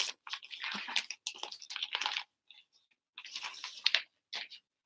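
Plastic packaging bag crinkling and rustling in irregular bursts as latex shorts are handled and pulled out of it, with a brief pause about two and a half seconds in.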